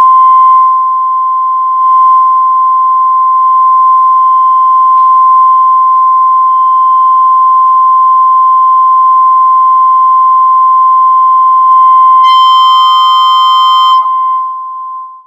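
Steady 1 kHz sine test tone from a TPA3116 class-D amplifier board driving a loudspeaker. About twelve seconds in, with the board at full output, the tone turns harsh and buzzy with heavy distortion for a couple of seconds, then clears. The tone cuts off suddenly at the end.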